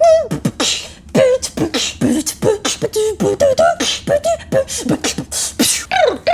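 A girl beatboxing a sound effect: a fast, busy run of mouth clicks and pops, hissing bursts and short pitched vocal notes that bend up and down.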